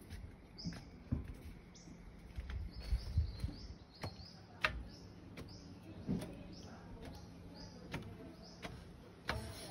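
Footsteps on wooden stairs and decking, with scattered thumps and a few sharp knocks. A bird gives a quick run of short, high chirps, each dropping in pitch, through the first six seconds or so.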